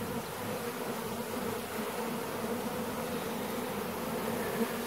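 Swarm of Carniolan honeybees from a newly installed package buzzing over the open hive's frames: a steady hum of many bees.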